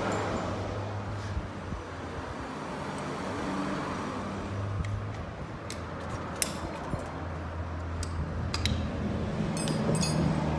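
Light metallic clinks of hand tools and loose parts against a Volkswagen manual transmission being taken apart, a few scattered ones and then a cluster in the second half, over a steady low rumble of vehicle traffic.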